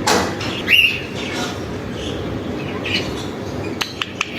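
Alexandrine parakeet calling: a short rising squawk about a second in and a weaker call near three seconds, followed by a few sharp clicks near the end.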